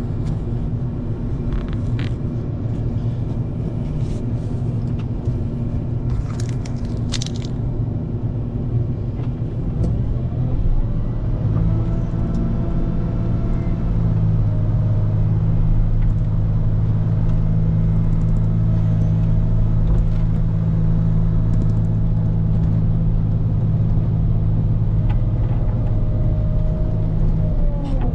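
Volvo L90H wheel loader's diesel engine running steadily, picking up revs about ten seconds in and holding a stronger, slightly louder note from there, with a brief dip and rise in revs near the end.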